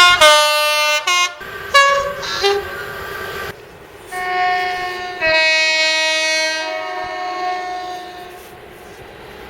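Train two-tone horns sounding in three separate blasts, each stepping between a high and a low note; the first two stop abruptly and the last fades out about a second before the end.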